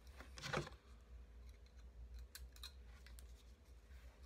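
Thin galvanized steel wire being twisted tight by hand around a diecast car's base: a brief scrape about half a second in, then scattered light clicks and ticks of wire and small parts being handled.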